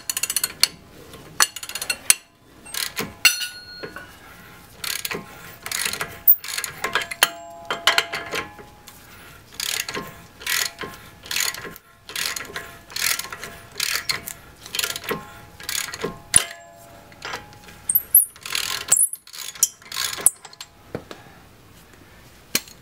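Half-inch drive ratchet with a 30 mm socket clicking through stroke after stroke as it spins the freshly broken-loose axle nut off a front CV axle, with light metallic clinks and ringing between strokes.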